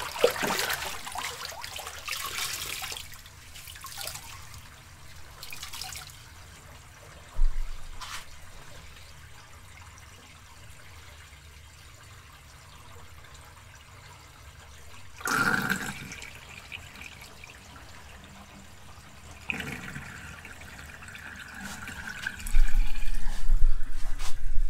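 Laundry tub draining through its freshly snaked drain after the stopper is pulled: splashing and rushing water at first, settling to a quieter steady flow. Twice in the second half the drain gives a short sucking gurgle with a thin whistle, and a low rumble comes in near the end.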